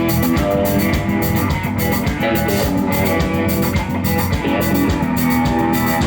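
Live band playing a country-rock instrumental passage with guitar and drum kit keeping a steady beat, no singing.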